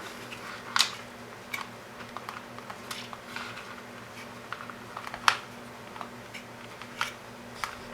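Scattered light clicks and taps of wires and small parts being handled on a workbench, over a steady low hum; the sharpest clicks come about a second in and about five seconds in.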